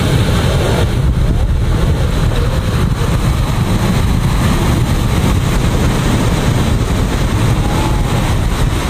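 Sea waves breaking and washing up a sandy beach, under a steady heavy rumble of wind buffeting the microphone.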